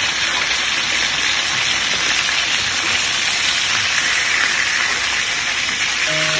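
Yogurt-marinated chicken pieces frying in hot oil in a nonstick wok, a steady sizzling hiss.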